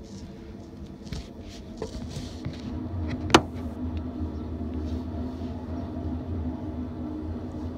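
Intermodal freight train rolling past, a steady low rumble with a hum that grows louder about three seconds in. A single sharp click just after that is the loudest sound.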